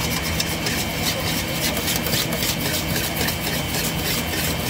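Wire balloon whisk beating egg yolks and milk in a stainless steel bowl, its wires scraping the metal in quick, regular strokes. Under it, the steady hum of an electric mixer's motor whipping egg whites.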